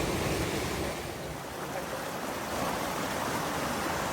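Forest stream of rushing water, a steady, even hiss that eases slightly about a second in and then picks back up.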